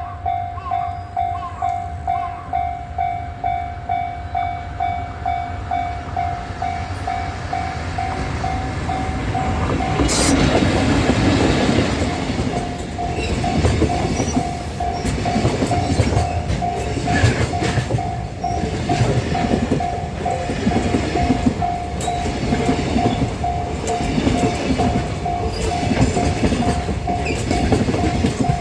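Level-crossing warning bell ringing about twice a second. About ten seconds in, a JR Freight train arrives and passes over the crossing, its heavy rumble and the clatter of wheels on rail running on under the bell.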